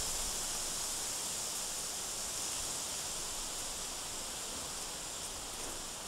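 Steady outdoor background hiss, high-pitched and even, with no distinct animal calls or hoofbeats standing out.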